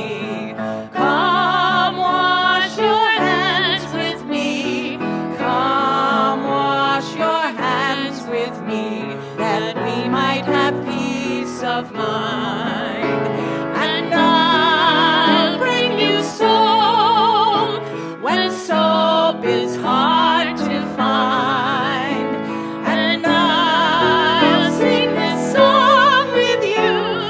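Two women singing a hymn with vibrato, accompanied by a grand piano.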